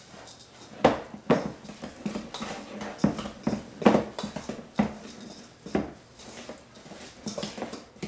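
Spoons stirring in mixing bowls: irregular sharp clinks and knocks of the utensils against the bowls, with scraping in between, as a dry mix of flour and rolled oats and a creamed batter are stirred.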